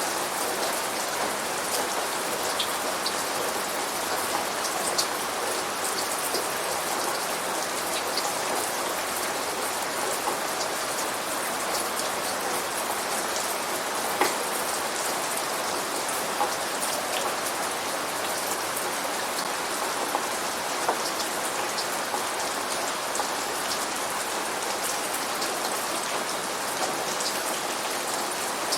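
Steady rain falling: an even hiss with scattered sharper drop taps.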